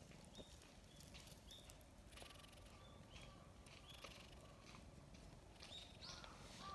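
Near silence: faint soft clicks of a black cat licking and nuzzling a hand that strokes its head, with a few faint high chirps. Near the end a run of short repeated calls begins.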